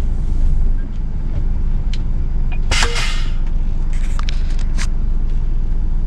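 Scania S500 truck's diesel engine running steadily, heard from inside the cab. About three seconds in there is a short, loud hiss of air, followed by a few light clicks.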